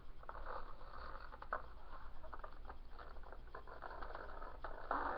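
Scissor point scratching and poking at a cardboard egg carton, scoring an outline to cut along: irregular short scratchy scrapes and taps, with a louder scrape near the end.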